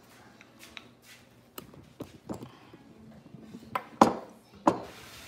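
A spoon knocking and clinking against dishes at a table: scattered light knocks, the two loudest about four seconds in and half a second later.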